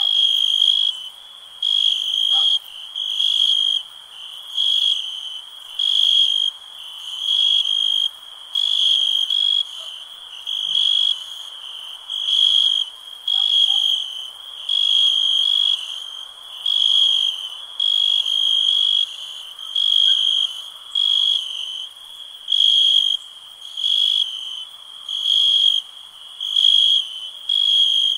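Night-time ambience: a cricket chirping in a steady rhythm of high-pitched pulses, about one a second, each lasting about half a second. A fainter, even background of night noise sits beneath it.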